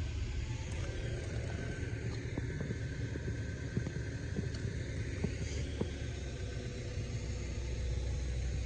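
Steady low rumble of wind on the microphone, with a few faint clicks.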